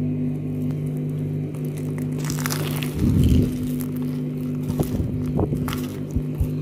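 Crunching bites into crispy breadcrumb-coated fried dough rolls, with chewing. The loudest crunch comes about three seconds in, and a few smaller crackling crunches follow near the end, over a steady low hum.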